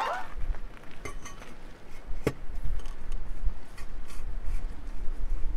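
Aluminium beer can being handled: light metallic clicks and clinks, with one sharp click about two seconds in, over a low rumble.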